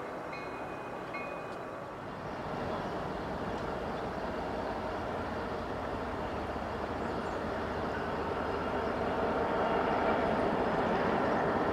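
CSX SD70MACe diesel-electric locomotive, with an ES44AH trailing, approaching at low speed: a steady rumble of diesel engines and wheels on rail that grows gradually louder as the units draw near. A few faint ringing tones sound in the first two seconds.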